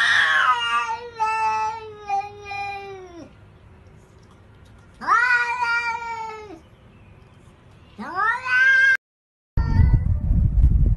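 A cat yowling: three long, drawn-out wavering cries, the first about three seconds long and the later two shorter. After a sudden cut near the end comes a low rumbling noise.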